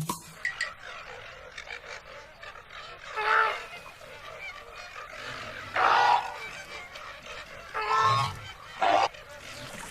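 An animal calling four times, in short pitched honk-like calls a couple of seconds apart, over a steady background hiss.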